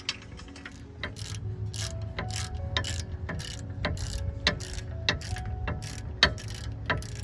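Background music: a steady beat of sharp, quick clicks over a low bass, with a short melody of repeating notes.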